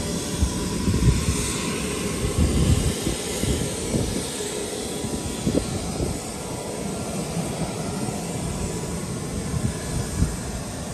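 Outdoor airfield noise: wind buffeting the microphone in irregular low gusts over a steady distant aircraft engine drone with a faint high whine. The parked helicopter itself is not running.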